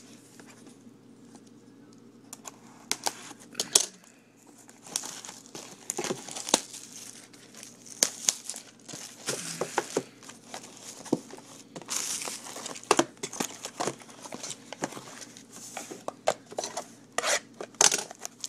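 Cellophane shrink wrap being torn and crinkled off a sealed trading-card box, in irregular crackles and sharp clicks. Only a few clicks in the first few seconds, then steady crackling for the rest.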